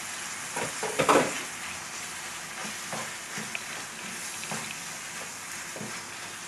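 Ground beef and sliced hot dogs sizzling in a frying pan while a slotted wooden spatula stirs and scrapes through them, the strongest strokes about a second in.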